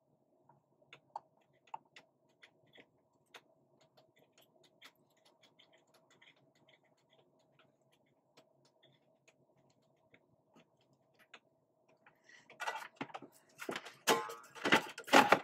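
Soft, scattered small clicks of a soldering iron tip and solder touching the LED strip's contact pads as they are tinned, over a faint steady hum. In the last few seconds come loud rustling and clattering as the light fixture and its cables are picked up and moved.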